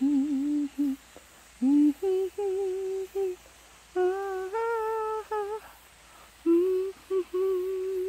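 A person humming a slow tune in short phrases, the held notes wavering slightly, the melody climbing to its highest notes about halfway through.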